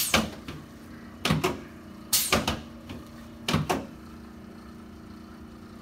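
Chiropractic adjustment of the lower lumbar vertebrae: a series of sharp knocks from the treatment table under the chiropractor's thrusts, about a second apart, some in quick pairs, over the first four seconds.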